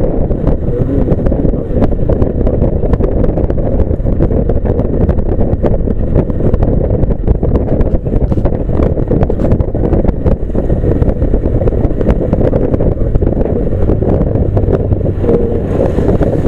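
Riding a motorcycle: wind buffeting the on-board microphone in a steady low rumble, over the bike's running and road noise.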